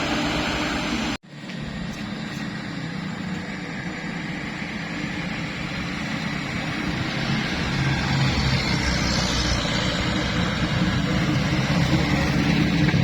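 Large diesel tour bus engine running, with a sudden dropout about a second in; the engine sound then returns and builds steadily louder as a bus approaches.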